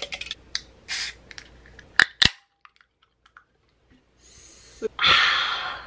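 Two sharp pops about two seconds in, then later a click followed by a loud fizzing hiss under a second long: carbonated soda cans being cracked open.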